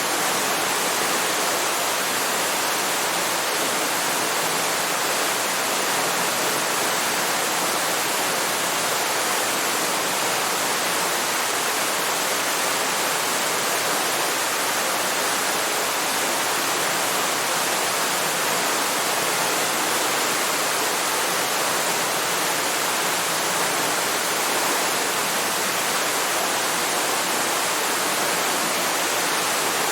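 Waterfall: a steady, even rush of falling water that never changes.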